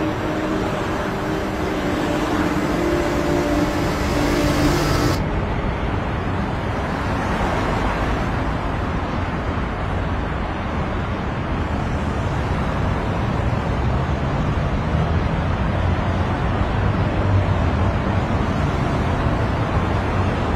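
Steady motor traffic noise: a car's engine and road noise at first, changing about five seconds in to a duller, even hum of city traffic.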